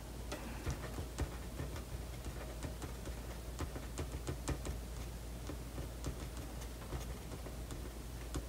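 Fine-tip marker drawing on paper: irregular light ticks and scratches of the pen tip as strokes are made, over a low steady hum.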